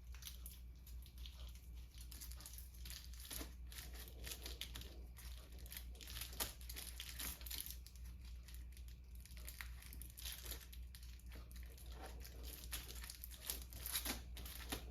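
Aluminium foil crinkling in irregular crackles as it is wrapped around a meat roll and its ends are twisted shut.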